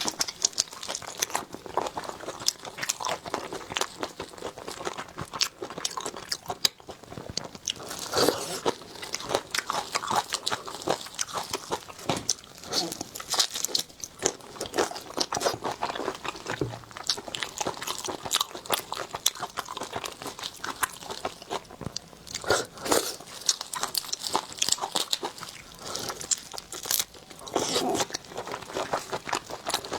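Close-miked eating of seafood: bites and crunchy chewing, a dense run of irregular crackles and clicks.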